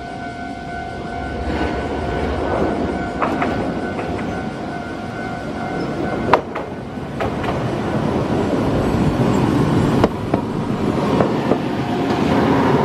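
Iyotetsu city tram running along the track and passing close below, a rumble that grows louder, with scattered sharp clicks of its wheels over the rails, the loudest about six seconds in.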